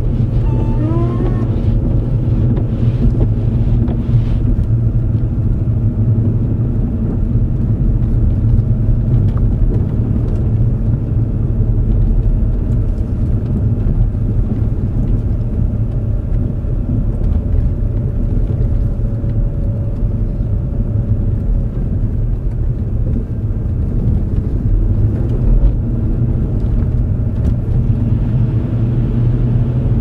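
A car's engine and tyres make a steady low rumble, heard from inside the cabin while driving over packed snow. A faint steady hum sits above the rumble, and a few brief rising tones come in the first couple of seconds.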